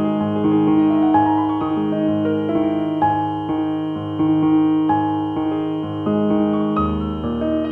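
Background piano music: a gentle keyboard melody over held chords, with a lower bass note entering near the end.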